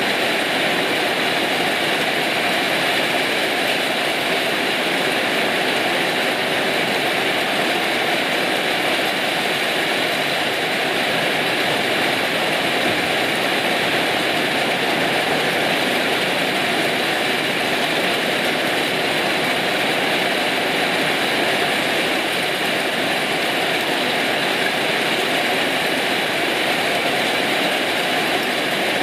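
Steady heavy rain falling, an even hiss with no break or change.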